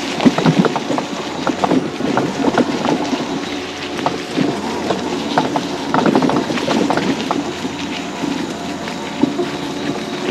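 Electric mobility scooter driving along: a steady motor hum under frequent rattles and knocks from the scooter bumping over the ground.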